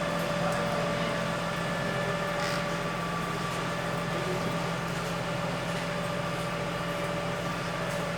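Steady mechanical hum with a few fixed tones over a constant rushing noise, like a running motor or fan.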